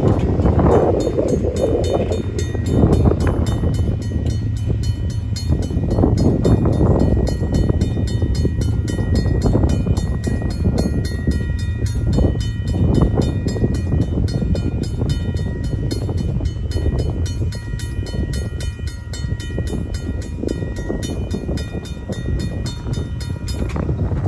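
Safetran mechanical crossing bell ringing in rapid, even strokes over a steady low rumble. The bell stops near the end, as the crossing's activation ends and the gates begin to rise.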